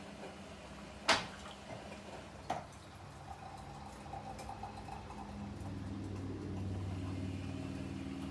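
Two sharp knocks, about a second and a half apart. Then the low hum of a vehicle engine builds and grows louder over the second half.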